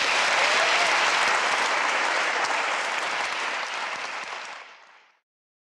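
Audience applauding at the end of a talk: loud, steady clapping that fades out about four seconds in and is gone by about five seconds.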